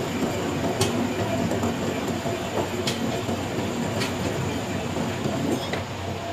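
Workshop machinery running steadily, with a faint sharp tick about once a second.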